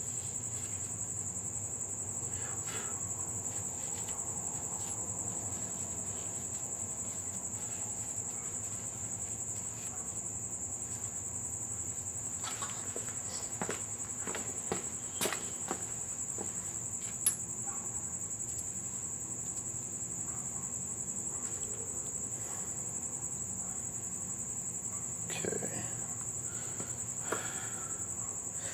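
A cricket trilling steadily and high-pitched without a break, with a few light metallic clicks and clinks from rocker arms and pushrods being handled on the engine's cylinder head, mostly about halfway through and again near the end.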